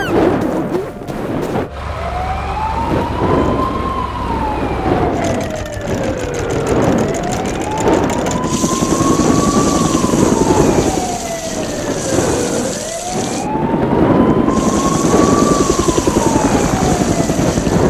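Emergency siren wailing slowly, rising and falling in pitch three times over a dense rumbling background.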